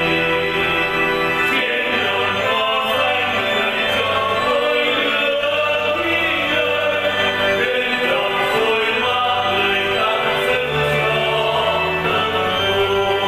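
Catholic hymn music: sustained choir-like voices over instrumental accompaniment.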